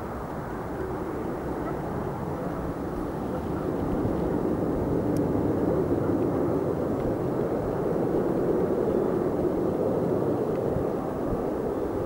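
Jet engine noise from a six-ship formation of MiG-29 fighters in flight: a steady rushing rumble that grows louder about four seconds in and stays up.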